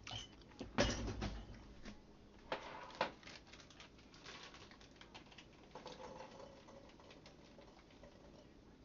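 Kitchen handling sounds: irregular knocks, taps and light clinks of glass jars and utensils being handled. The loudest knocks come about a second in and around three seconds in, with quieter handling after.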